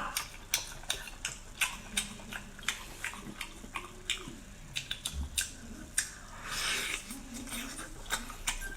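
Close-up wet chewing and mouth clicks of someone eating spicy sea snail meat, a few smacks every second, with a short denser wet stretch about two-thirds of the way through.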